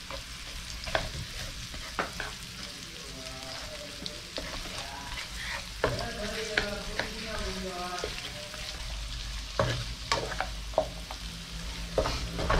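Onions, garlic and ginger sizzling in hot oil in a frying pan, stirred with a spatula that clicks and scrapes against the pan every second or two.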